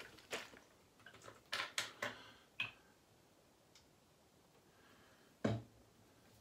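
A bottle of Pinaud Clubman aftershave being handled: a scatter of small clicks and taps in the first three seconds, then a single dull thump about five and a half seconds in.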